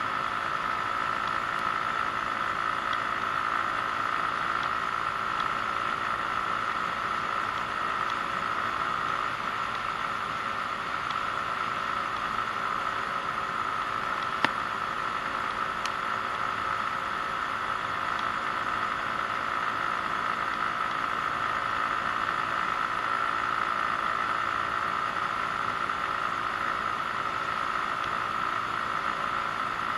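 Genuine Buddy 125 scooter's single-cylinder four-stroke engine running at a steady cruising speed, mixed with wind and road noise on a chest-mounted camera; the drone holds an even pitch throughout. A single sharp click about halfway through.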